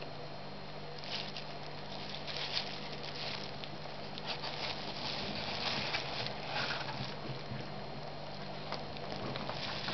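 Rustling and crinkling of a thin plastic glove and paper as a disc brake caliper is turned and pressed by hand, in irregular bursts from about a second in, over a steady low hum.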